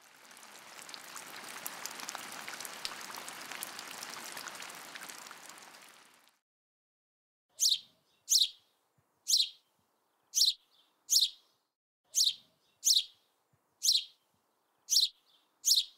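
A songbird calling: about ten sharp, high chirps, each sliding quickly downward, in the second half, often two close together. Before them, a hiss with fine crackle swells and fades away over the first six seconds.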